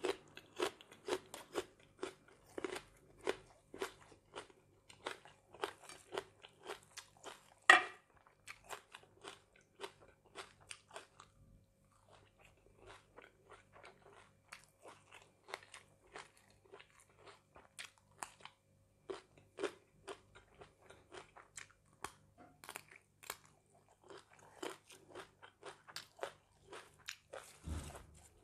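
Close-up chewing of a mouthful of food: wet crunching and smacking, a few strokes a second, with one sharp loud crunch about eight seconds in and softer chewing through the middle. A low thump comes near the end.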